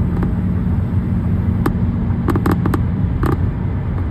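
Steady low rumble of a vehicle on the move, with a constant engine drone, broken by a few short sharp cracks about halfway through and again near the end.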